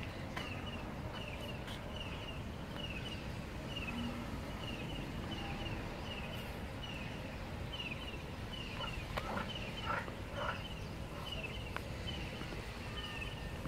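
Egyptian geese giving a few short, harsh calls about nine to ten and a half seconds in. Behind them a high chirp repeats steadily about twice a second over a low background rumble.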